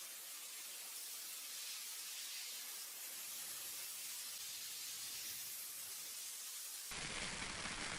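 A steady hiss, with a sudden change about seven seconds in to a louder, fuller noise.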